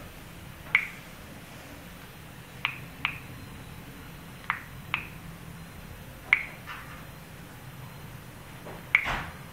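Short, sharp clicks from taps on a smartphone's on-screen keyboard while a search is typed, about seven at irregular intervals, over a faint steady low hum.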